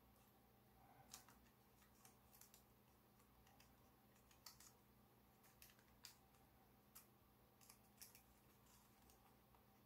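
Faint, scattered crinkles and ticks of shiny foil origami paper being pinched and creased between fingers, about a dozen in all, over near silence.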